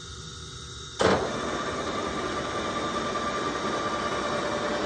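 MSC 14x40 gap-bed engine lathe started up about a second in: a sharp clunk as the spindle engages, then the headstock gearing and motor running steadily with a light whine.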